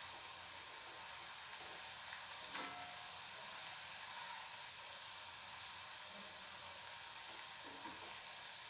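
Vadas deep-frying in hot oil in a kadhai, a steady sizzle with a brief click about two and a half seconds in.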